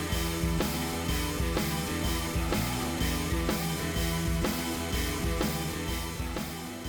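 Background music: a song with guitar and a steady drum beat, beginning to fade out near the end.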